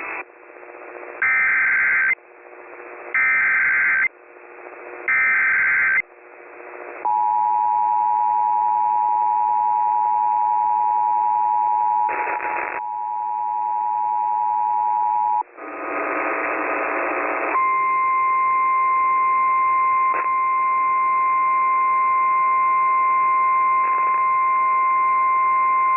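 Emergency Alert System tones: three short screeching bursts of the digital alert header, about a second apart, then the two-tone attention signal held for about eight seconds. After a brief noisy burst comes the steady single-tone NOAA Weather Radio alarm for about nine seconds. Together they announce a tornado warning.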